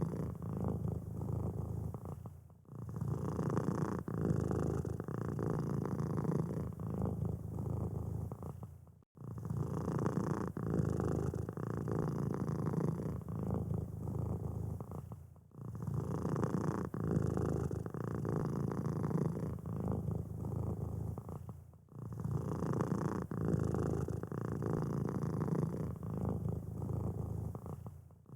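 Domestic cat purring steadily, with a short break about every six and a half seconds.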